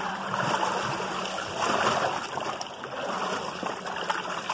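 Muddy water sloshing and splashing in a stone tannery vat as wet hides are kneaded and turned by hand, with louder swells about half a second and two seconds in.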